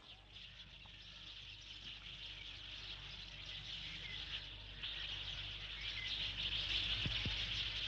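A dense chorus of crickets chirping, growing gradually louder.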